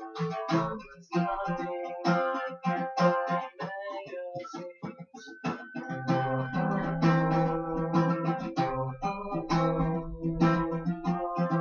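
Acoustic guitar playing an instrumental passage, picked and strummed chords ringing out, with a brief break about a second in.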